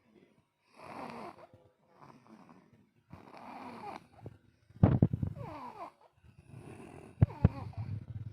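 Snoring in sleep: about five rough snores, spaced roughly a second and a half apart. A sudden loud thump comes about halfway through, and two sharp clicks come near the end.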